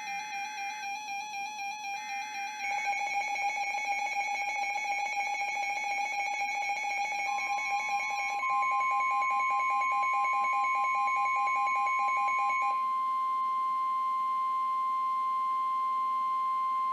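NOAA Weather Radio alert sequence. It starts with the last two of three short SAME digital header bursts, each a raspy warble of two data tones, heard under the fast pulsing electronic beeps of weather-radio receivers' alarms. About eight seconds in a loud, steady warning alarm tone comes on, and the beeping stops a few seconds later.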